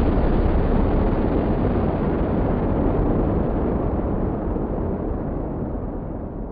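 A deep, noisy rumble with no clear pitch, slowly fading away over the last few seconds.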